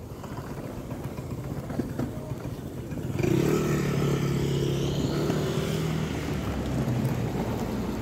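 A motor vehicle's engine passing close by. It comes in suddenly about three seconds in as a steady engine note, stays loud for a few seconds, then fades away.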